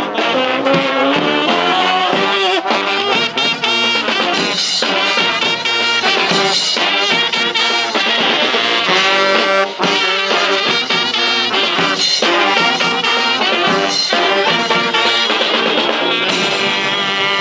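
Brass band playing live, horns in full ensemble over steady percussion hits.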